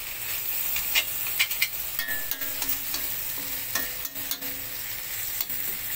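Fermented mustard greens with kepayang sizzling in a pan over lowered heat, nearly cooked. A spatula scrapes and knocks against the pan a few times as the dish is stirred.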